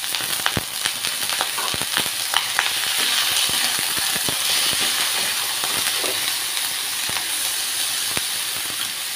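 Ground pork sizzling as it fries in a hot wok, with a steady loud hiss. A spatula clicks and scrapes against the pan as the meat is stirred and broken up, most often in the first few seconds.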